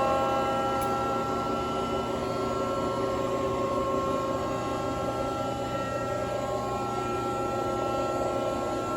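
Accurpress press brake's hydraulic power unit running at idle: a steady hum with several constant tones over a light whir, easing very slightly in level.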